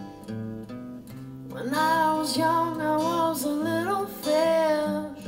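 Soft rock song: strummed acoustic guitar, joined about a second and a half in by a woman singing a held, wavering line.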